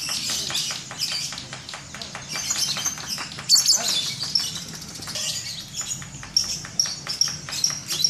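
Many caged lovebirds chattering at once: a dense, continuous stream of rapid high-pitched chirps and trills, with a louder flurry about three and a half seconds in.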